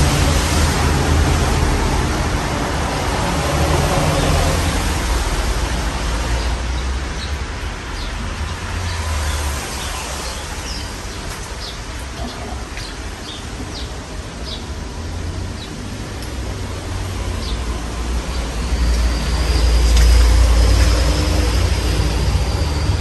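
Modern Fan Company Cirrus ceiling fan running, its moving air rushing over the microphone as a steady hiss with a low rumble that swells and eases.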